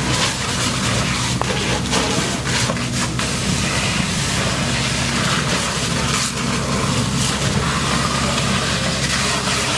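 Fire hose spraying water into the burning cab of a garbage truck, a steady dense hiss of spray and steam, with an engine running steadily underneath. A few sharp cracks or knocks come in the first three seconds.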